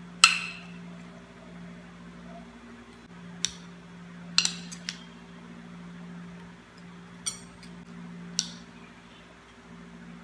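A plastic spoon clinks against a glass bowl and stainless-steel dessert goblets as chopped fruit is spooned in: several separate light clicks, the first the loudest. A steady low hum runs underneath.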